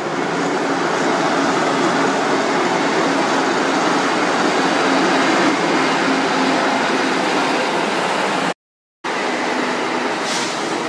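Large diesel engine of a Kato crane truck running steadily, heard close up as a loud, even drone with a low hum. The sound cuts out completely for about half a second near the end.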